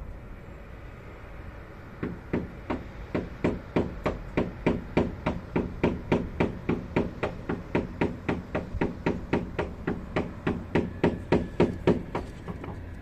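A fast, even series of knocks like hammer blows, about four strikes a second, some louder than others. The knocking starts about two seconds in and stops shortly before the end.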